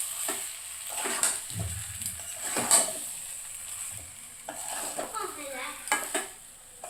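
Paneer curry sizzling in a pan while a spatula stirs it, scraping and knocking against the pan, with one sharp knock a little before halfway.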